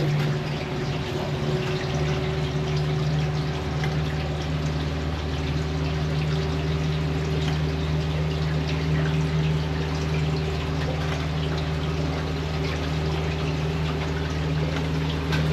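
Suzuki 150 four-stroke outboard running steadily at low throttle, with water rushing and sloshing along the aluminum hull. A deeper hum comes in about two seconds in.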